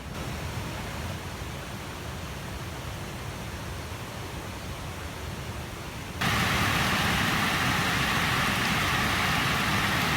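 Steady hiss of heavy rain, which turns much louder and brighter about six seconds in.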